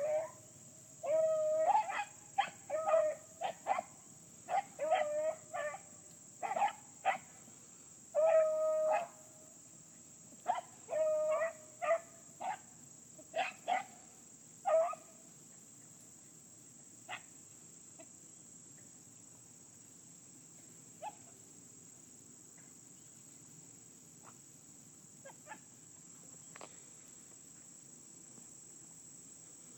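Beagles baying on a rabbit: a run of bawls and short chop barks for about fifteen seconds, then only a few scattered short sounds. A steady high drone of insects runs underneath.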